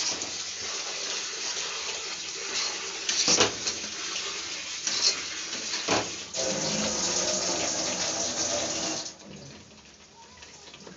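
Wet onion-and-spice masala sizzling and bubbling in a hot wok just after water has been added, while a wooden spatula stirs it, with two sharp scrapes or knocks of the spatula on the pan. The sizzle gets louder for a few seconds and then dies away suddenly near the end.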